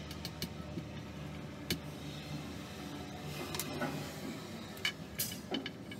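Scattered light clicks and taps as a metal screw is handled and set against a pine board, a few at a time with gaps between. A steady low hum runs underneath.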